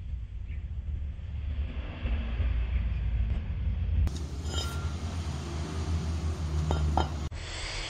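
A few sharp metallic clinks of cast-iron brake discs being handled and knocked together, over a steady low rumble.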